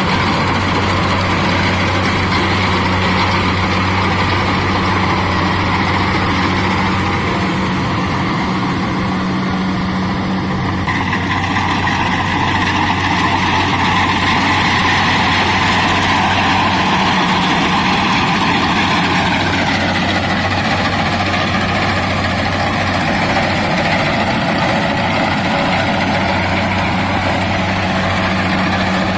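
Kubota DC-70 combine harvester running steadily: a constant low diesel engine hum under a dense mechanical whirr. The whirr grows brighter about eleven seconds in and changes again near twenty seconds.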